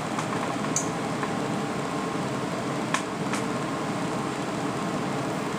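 Steady whirring of a desktop PC's cooling fans as the machine boots, with a few light clicks about a second and three seconds in.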